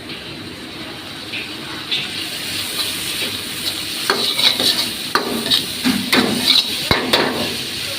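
Food sizzling as it is stir-fried in hot oil, with a spatula scraping and clanking against the pan in quick strokes over the second half.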